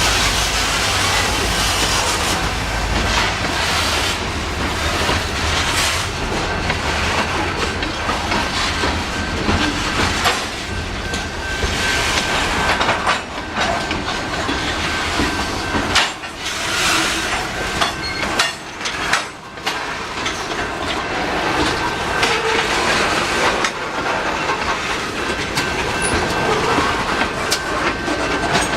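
Tacoma Rail freight train rolling past close by, its wheels clacking steadily over the rail joints, with a thin steady high tone running over the rumble.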